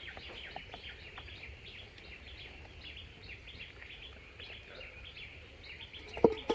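Many short, high chirps overlapping one another, like a flock of birds chirping, over a faint low rumble. There is a single sharp knock near the end.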